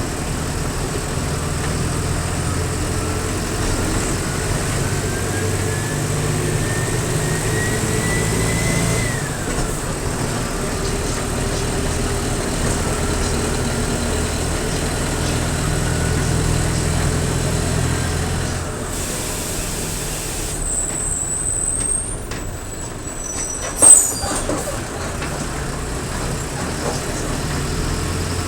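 Mercedes-Benz OF-1722M bus's turbodiesel engine pulling under load, with a thin whistle that rises steadily for about nine seconds and then drops away as the revs fall. It pulls up again with a fainter rising whistle, then eases off about nineteen seconds in. About twenty-four seconds in there is a short, loud air-brake hiss.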